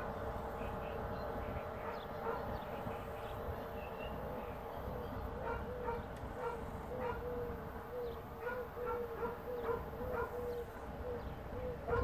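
A dog barking over and over in a steady run of short barks, about two a second, more regular in the second half. Faint birdsong chirps sound above it.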